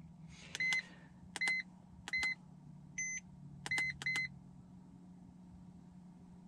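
iCarSoft POR v2.0 OBD2 scan tool beeping as its keys are pressed: six short high beeps over about four seconds, the fourth one higher-pitched, the last two in quick succession. A faint steady low hum lies under them.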